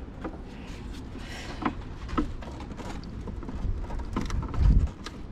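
Handling noise of a part being pushed into place in the van's blower housing: a few light clicks and knocks, then a short low rumble near the end.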